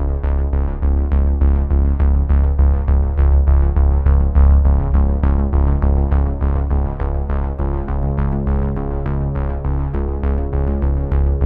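Background music: a synthesizer tune over a steady quick beat with a heavy bass, about four notes a second.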